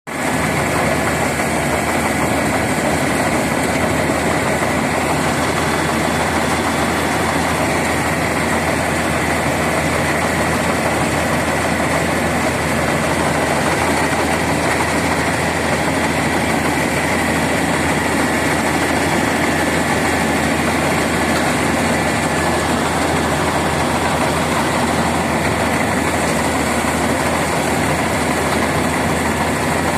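Combine harvester running steadily, its engine and machinery making a constant loud drone with a faint steady high whine.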